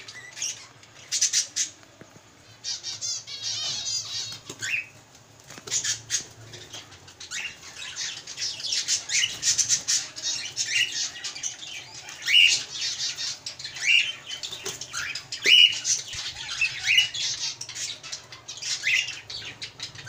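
Cockatiels squawking in a wire cage, short sharp calls every second or two, with wings flapping as one bird is handled.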